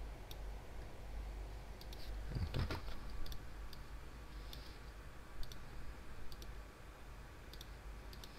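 Faint computer mouse clicks, single and in quick pairs, scattered every second or so over a low steady hum, with a brief soft low rustle about two and a half seconds in.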